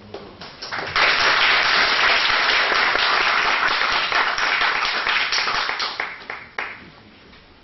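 Audience applauding: a few scattered claps, then about five seconds of full applause that thins out into separate claps and stops.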